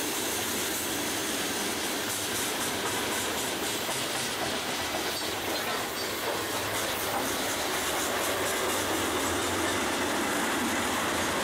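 Freight cars of a mixed freight train (tank cars, boxcars, gondolas) rolling past: a steady rumble and hiss of steel wheels on rail, with wheel clicks over rail joints a few seconds in.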